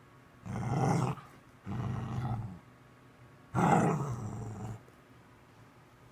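A pet dog making three drawn-out, low growling grumbles, vocalising at its owner.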